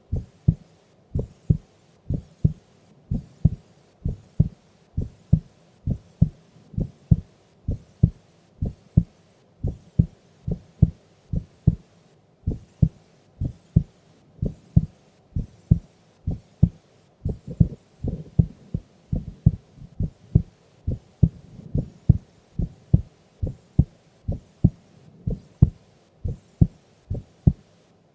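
A sleeping woman's heartbeat, slow and steady at about one beat a second, each beat a close double thump.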